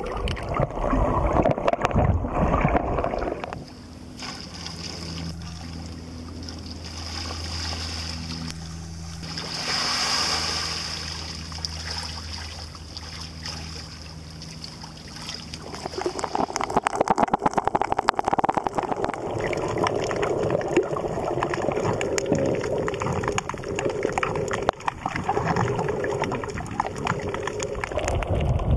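Water sloshing and gurgling against an underwater camera, loud and irregular. A quieter stretch in the middle has softer water sounds over a steady low mechanical hum.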